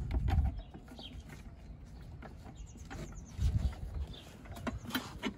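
A 12V lithium iron phosphate car battery being set down and settled in its battery tray: two dull thumps, one at the start and one about three and a half seconds in, with light clicks and knocks of handling between them and a few sharper clicks near the end.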